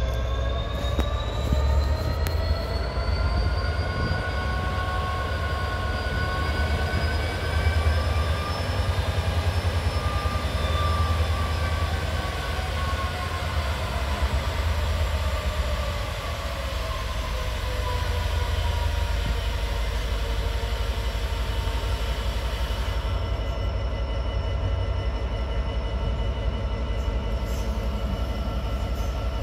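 Class 66 diesel locomotive's EMD two-stroke V12 engine running under load as the locomotive creeps along, with a deep rumble. Its pitch rises over the first several seconds, falls away around the middle, then holds steady.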